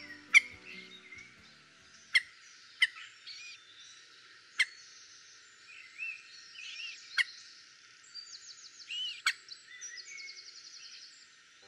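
Several small birds calling and singing: sharp single calls every second or two over chattering, buzzy song phrases.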